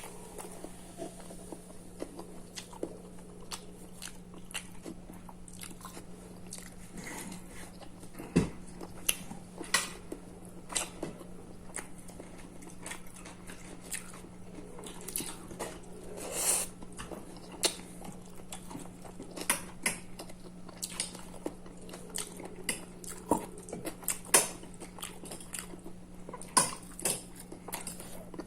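Close-miked eating: chewing and mouth smacks with scattered small clicks, irregular throughout, over a steady low hum.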